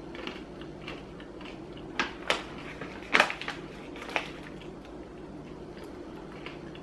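Crunchy granola clusters being chewed while a hand rustles in the plastic snack bag, with a few sharp crackles about two to four seconds in.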